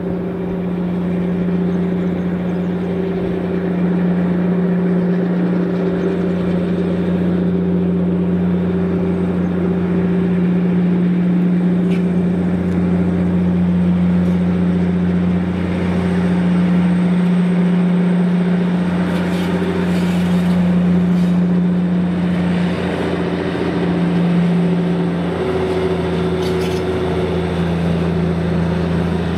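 Diesel locomotive's engine running with a steady low drone as it hauls a loaded freight train toward the camera, with a few faint clicks in the second half.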